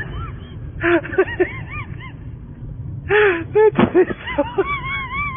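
Voices shouting and whooping in short calls that rise and fall in pitch, then a long, wavering high-pitched cry that starts near the end. A steady low rumble runs underneath.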